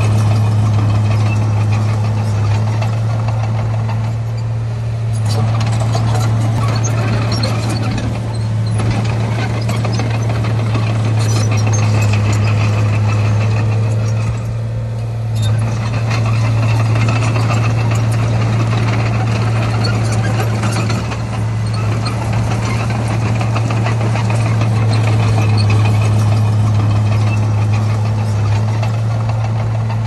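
Heavy diesel engine of earthmoving machinery running steadily, a deep constant drone with a few brief dips in level.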